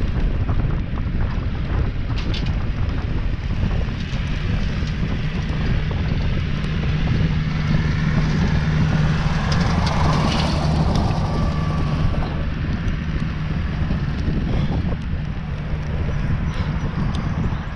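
Wind buffeting an action camera's microphone while riding a bicycle along a paved trail, with tyre noise. A low steady hum swells in the middle and fades again.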